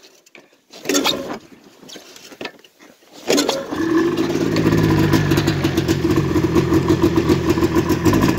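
Cold start of a 1987 Yamaha Exciter 570's two-stroke snowmobile engine on choke, pulled by the recoil rope. A short pull about a second in, then the engine catches a little after three seconds and keeps running steadily.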